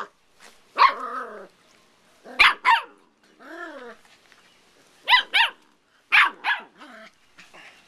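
Seven-week-old puppies barking in short, high yaps, mostly in pairs, as they play-fight, with a longer rising-and-falling growl about halfway through.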